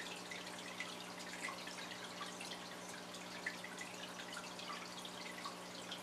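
Budgerigars (parakeets) chirping softly: many short, scattered chirps, a few a second, over a steady low hum.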